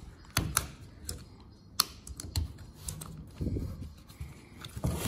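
Irregular small clicks and taps of a thin wire spring clip against a plastic mirror-glass backing plate as it is worked back into its holder by hand.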